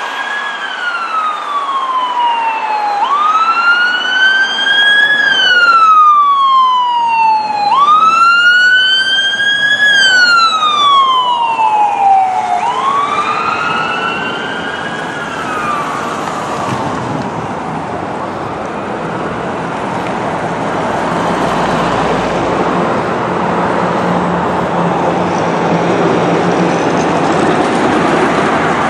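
Ambulance siren on an emergency (code three) run, sounding a slow wail that sweeps up and down about every five seconds, loudest in the middle, then fading out about sixteen seconds in. Steady road traffic from passing cars remains.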